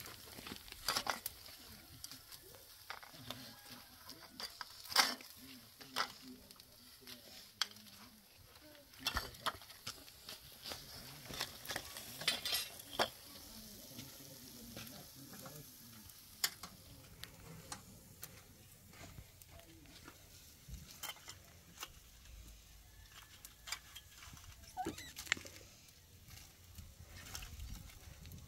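Grilled chicken on metal kebab skewers: scattered sharp clinks and scrapes of the skewers as the pieces are lifted off and slid onto plates, over a soft sizzling hiss.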